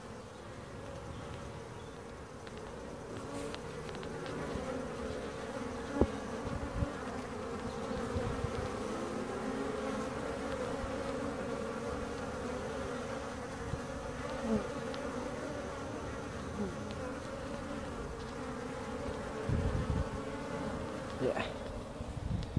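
Honeybees buzzing at a hive entrance: a steady hum of many bees, with single bees gliding up and down in pitch as they fly close past the microphone. This is busy flight traffic of a colony out foraging and bringing in pollen on a warm early-spring day. Now and then a low rumble on the microphone.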